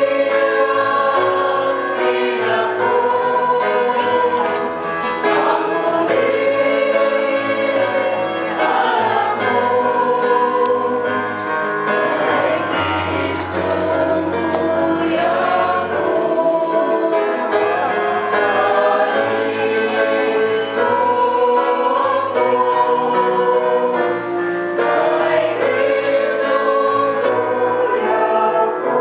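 A choir singing a hymn over instrumental accompaniment with a sustained bass line, continuous and steady in level.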